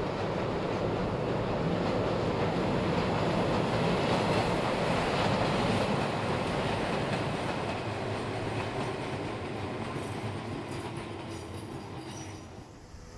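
Izuhakone Railway Daiyuzan Line electric train passing on the track. It grows loudest about halfway through, fades, and drops off sharply near the end.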